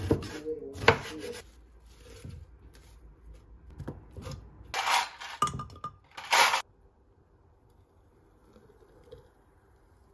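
A chef's knife chopping pineapple on a wooden cutting board, a few sharp knocks in the first second and a half. Then, from about five seconds in, a handful of louder clinks and clatters of kitchenware.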